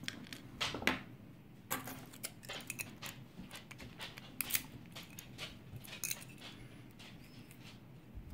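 Irregular metallic clicks and clinks as a small lock and its keys are handled and worked on by hand, taking the lock apart.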